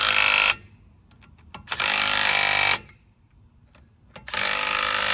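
Impact wrench hammering lug nuts onto a wheel, running in bursts of about a second, three times, with short pauses between.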